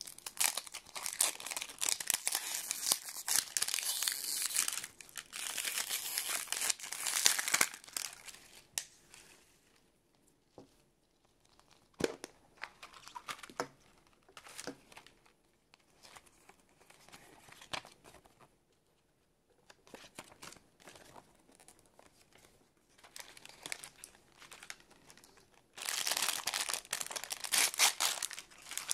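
Paper wrapping being torn and peeled off a plastic surprise ball, with dense crinkling for the first several seconds. Then come quieter handling noises and a sharp click about twelve seconds in as the plastic ball is opened. Near the end there is loud crinkling again as a paper wrapper is unfolded from a small toy.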